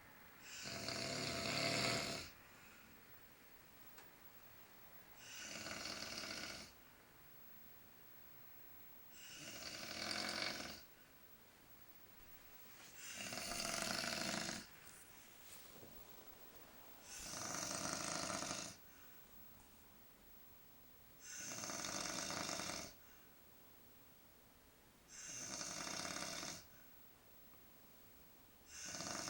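A man snoring in his sleep, a regular snore about every four seconds, each lasting a second and a half or so, with quiet breathing gaps between.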